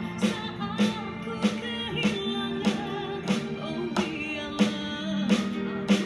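A song with a singing voice, guitar and a steady drum beat, played back through a Logitech Z337 2.1 speaker set of two satellites and a subwoofer.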